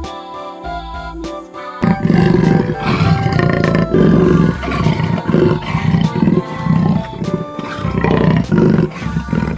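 Leopard calling in a run of rough, repeated roars about twice a second, starting about two seconds in, over light background music.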